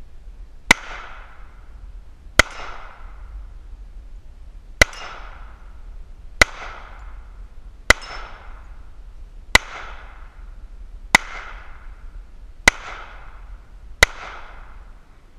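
Hi-Point JHP .45 ACP pistol fired nine times at a steady pace, about one shot every second and a half, each sharp report trailing off briefly.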